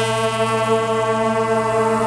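Brass marching band holding a long, steady chord.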